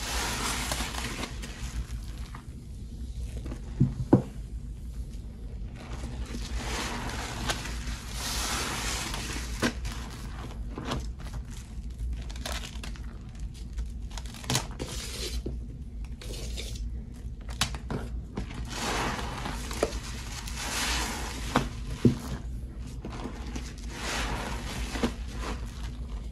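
Frothy mix of Pine-Sol, Lestoil and Murphy's Oil Soap being worked by hand: repeated swells of wet, bubbly crackling and squishing, with scattered clicks and a couple of sharper knocks, about four seconds in and again later on.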